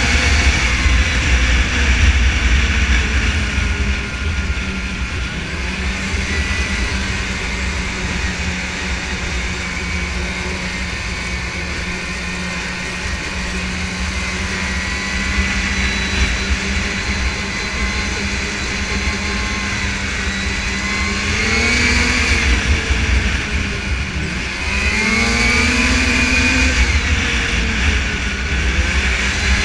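Snowmobile engine running at speed, with a heavy low rumble under a steady engine note. Twice in the last third the engine note rises and falls as the throttle is opened and eased off.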